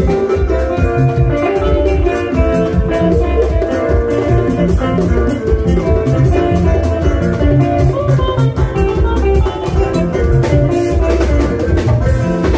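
Live band playing an instrumental passage: a drum kit keeps a steady beat under busy, bright guitar lines.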